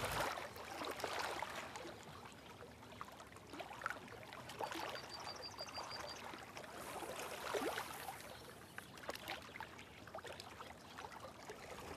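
Faint water sounds: small splashes, trickling and drips as a caught bream is lowered from the landing net and released back into the lake.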